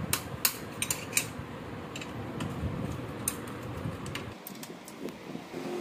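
A scattered run of light, sharp metallic clicks and taps from tools and parts being handled on an opened motorcycle cylinder head. Several come close together in the first second and a half, and a few more follow.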